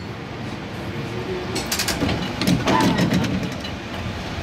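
San Francisco cable car rolling along with a steady low rumble from the cable and wheels, with a run of quick clicks and clanks about a third of the way in and again about two-thirds in.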